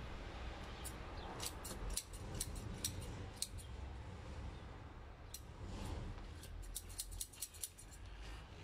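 Scattered sharp snips and snaps as young chili leaves and shoot tips are cut off the plants, coming in irregular clusters.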